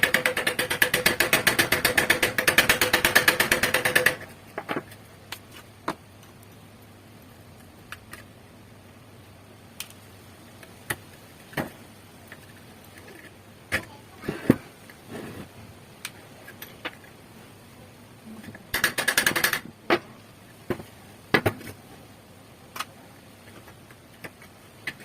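Workshop tool work on rusty gun parts: a fast mechanical rattle for about four seconds, then scattered sharp metal clicks and knocks, with a second short rattle about nineteen seconds in.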